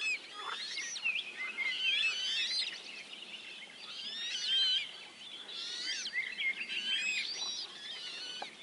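Dawn chorus of several songbirds singing at once: many overlapping whistled phrases and trills.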